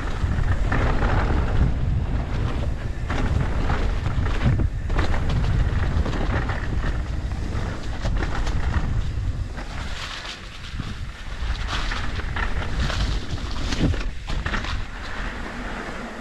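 Wind buffeting the microphone during a mountain bike ride over rough ground, with a low rumble and irregular rattling and clattering from the bike. The rider hopes the clatter is just chain slap.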